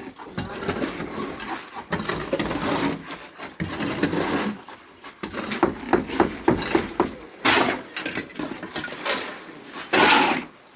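Irregular clatter and knocks of hand tools and metal pans during concrete work, with a quick run of sharp knocks in the middle and scraping between.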